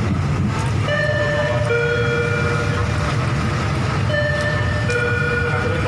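Steady running noise of a slow passenger train heard from an open coach window. Over it, a high-then-low two-note tone sounds twice, about three seconds apart.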